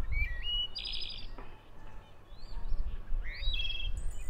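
Songbirds singing: a series of short chirps and whistled notes, some rising and falling, over a low rumble.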